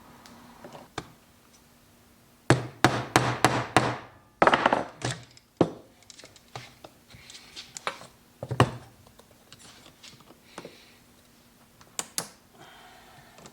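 Hand tools and parts being handled: a quick run of clattering knocks, a scraping rub, then a few single knocks and clicks, with no engine running.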